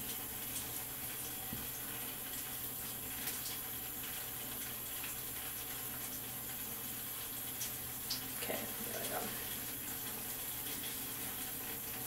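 Steady background hiss with faint, scattered rustles of a fabric head scarf being handled and tied.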